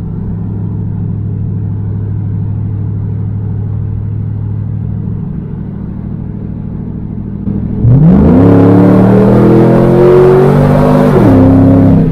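The 2002 Camaro SS's LS1 V8, heard from inside the cabin, cruises at a steady drone, then opens up hard about eight seconds in. The engine note jumps sharply in loudness and climbs as the car accelerates. It drops suddenly at a gear change near the end, then pulls steadily on.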